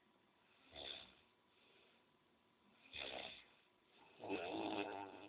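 A man snoring loudly in his sleep: three snores, the last one longer and louder, about a second long.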